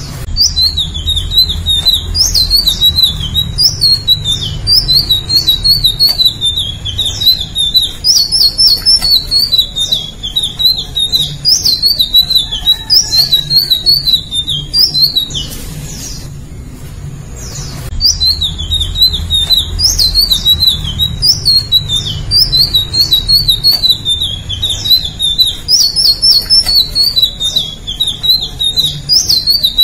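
Indigo flycatcher singing a long, fast, jumbled warbling song of high zigzagging notes. It breaks off for about two seconds halfway through, then starts again.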